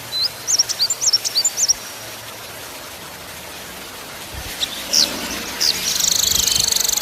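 Small songbird's song: a quick burst of high whistled notes sliding up and down, then, after a short pause, a few sharp notes and a fast buzzing trill from about six seconds in.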